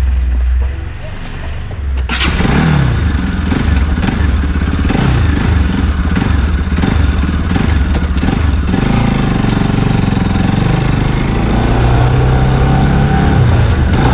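Motorcycle engine pulling away: a sudden burst about two seconds in, then the pitch climbs and drops several times as it works up through the gears. It then settles into a steady run at constant speed.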